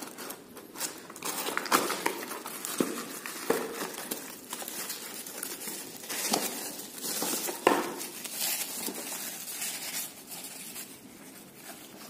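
Cardboard box and plastic bag being handled as a packaged lamp is unboxed: irregular crinkling of plastic wrap and rustling and scraping of cardboard, with scattered clicks and one sharper snap about two-thirds of the way through.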